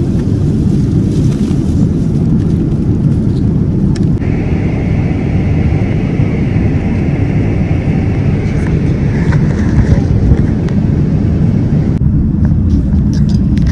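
Steady, loud, low rumble of a moving vehicle, with abrupt changes in its character about four seconds in and near the end.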